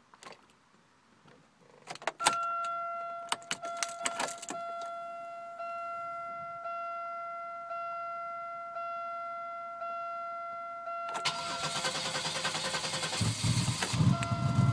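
Oldsmobile's warning chime dinging about once a second after the key is turned on, then the starter cranking from about 11 s in and the engine catching near the end: the car now starts, its Passlock security relearn complete.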